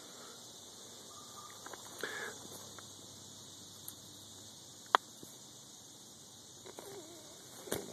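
Low steady background hiss with a few faint brief rustles and one sharp click about five seconds in.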